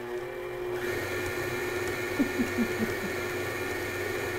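Electric stand mixer running at speed, its beater whipping softened cream cheese in a steel bowl, with a steady motor hum that gets a little louder about a second in. A quick run of five short chirps comes about two seconds in.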